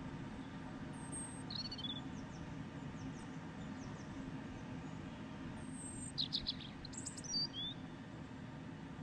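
Birds chirping: a few short, high calls about a second and a half in, then a quick cluster of chirps around six to seven and a half seconds in, over a steady low hum.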